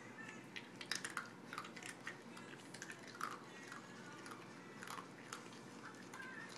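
Dachshund mouthing and chewing, with irregular wet smacking clicks.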